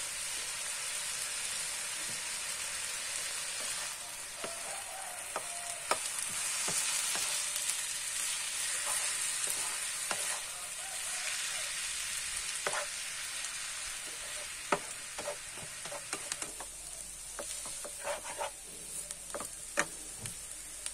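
Stir-fried noodles and shredded cabbage sizzling in a non-stick frying pan with a steady hiss. A wooden spatula tosses them, giving scrapes and sharp clacks against the pan that come more often in the second half.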